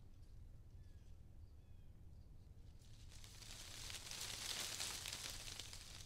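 Quiet outdoor ambience: a few faint, short falling chirps in the first two seconds, then a rustling hiss that swells about three seconds in and fades again before the end, over a steady low rumble.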